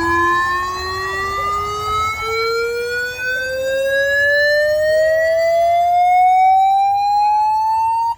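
A rising sine-sweep test tone played loud through a car sound system, part of a sound-system test track. One steady pitch with overtones glides smoothly upward from low-mid to mid, then cuts off suddenly.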